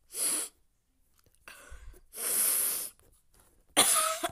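A person's breath, close to the microphone: three noisy puffs of air. There is a short one at the start, a longer one about two seconds in, and a last one near the end with a slight voiced catch.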